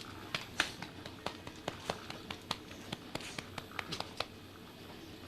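A run of about twenty short, sharp taps and clicks at irregular spacing, stopping about four seconds in.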